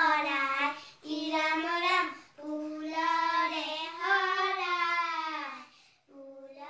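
Young girls singing an Assamese poem together, in sung phrases broken by short pauses; the last phrase, starting about six seconds in, is quieter.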